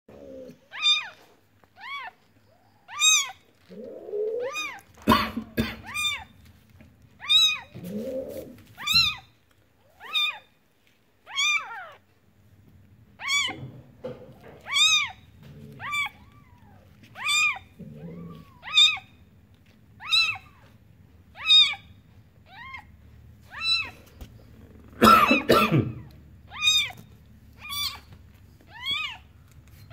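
Newborn kitten crying in short, high-pitched mews that rise and fall, about one a second, over and over. A few lower, longer sounds come in around four and eight seconds in, and there is a louder jumble of sound about 25 seconds in.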